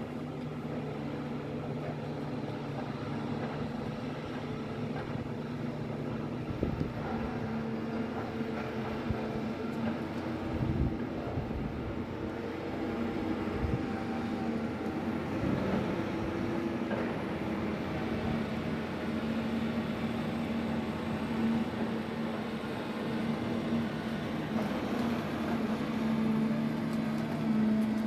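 Diesel engine of a forestry forwarder running with a steady drone, with a few knocks and thumps in the middle stretch.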